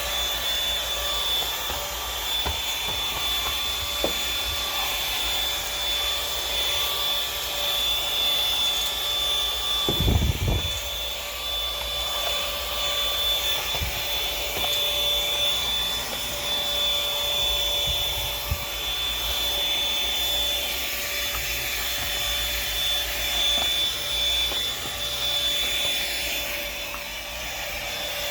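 Vacuum cleaner running steadily with a high motor whine. There is a brief low thump about ten seconds in.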